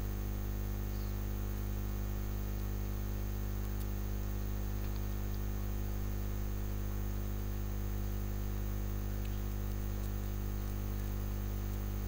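Steady electrical mains hum at about 50 Hz and its overtones, with a few faint clicks.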